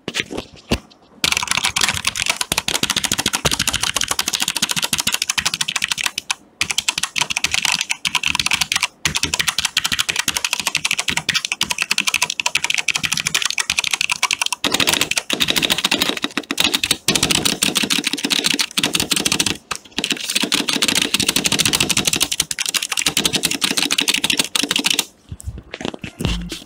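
Fast typing on a Vortex Pok3r RGB 60% mechanical keyboard with Cherry MX Brown switches: a dense run of non-clicky keystrokes, a bit noisy, with a few short pauses. It starts about a second in and stops shortly before the end.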